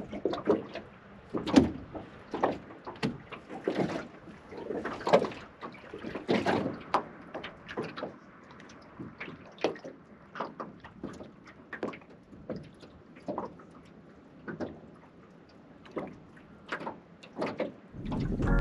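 Irregular knocks, clunks and water splashes in a small aluminium boat, with the louder ones in the first seven seconds and sparser, quieter ones after that.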